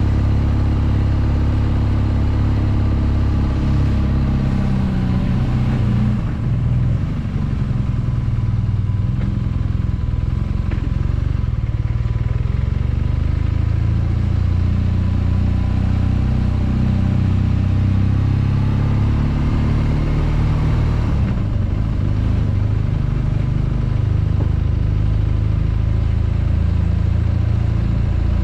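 Motorcycle engine running steadily under way. The engine note drops and picks up again twice, about six seconds in and again about three quarters of the way through.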